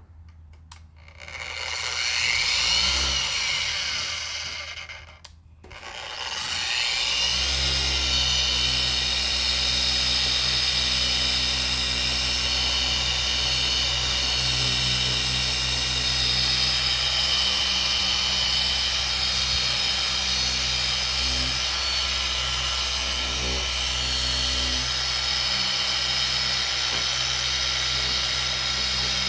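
Small power tool spinning a 3-inch microfiber pad, machine-polishing a plastic headlight lens. It runs briefly, stops about five seconds in, then starts again a second later and runs steadily.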